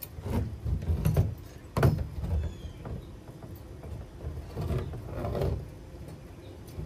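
Small animatronic parts being handled and fitted together by hand, with a few sharp knocks and irregular clunking and rattling.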